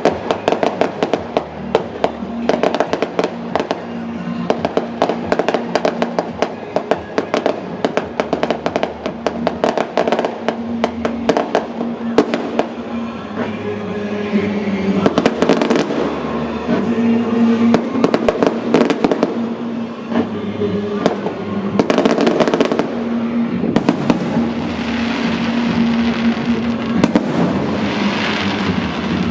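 Fireworks going off in rapid succession: many sharp bangs and crackles, with heavier clusters of bursts partway through and a hissing fizz near the end. A steady pitched background, likely music, runs underneath.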